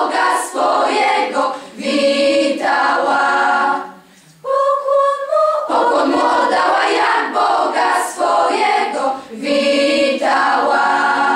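Girls' choir singing a Christmas carol unaccompanied, in several voice parts. About four seconds in the sound drops briefly, and for about a second only a few voices hold the line before the full choir comes back in.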